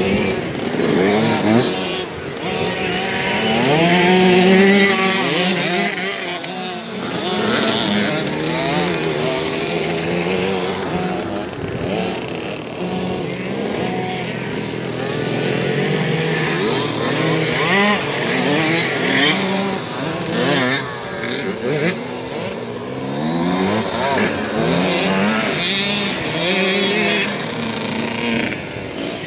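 Kids' small dirt bikes riding and revving, their engine notes rising and falling over and over as they accelerate and ease off.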